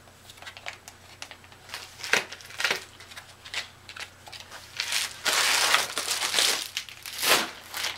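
Plastic packaging being handled, crinkling and rustling in irregular bursts, with a louder, denser run of crinkling about five seconds in.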